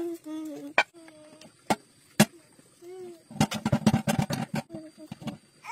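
A small child's voice, a few sharp knocks, then from about three and a half seconds in a toddler rapidly beating a metal cooking pot with a stick.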